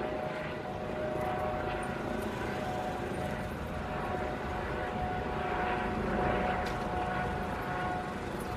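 A steady engine drone with a constant whine over a rumble, slightly louder around six seconds in.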